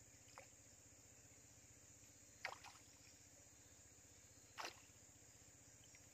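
Two brief splashes of water at the river's edge, about two seconds apart, over a steady high drone of insects.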